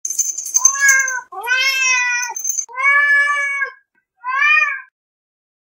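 Domestic cat meowing four times in a row: three calls of about a second each and a shorter fourth. A high bright ringing sound runs under the first second.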